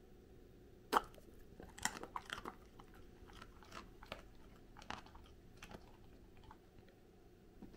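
Goldendoodle biting into a piece of carrot with a sharp snap of the jaws about a second in (a 'paku' sound), then crunching and chewing it, the crunches thinning out over the next few seconds.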